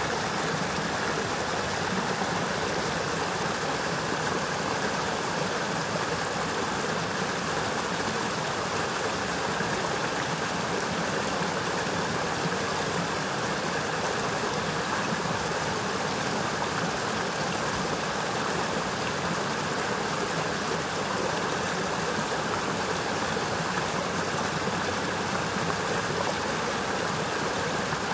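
Forest stream rushing steadily as its water tumbles downhill.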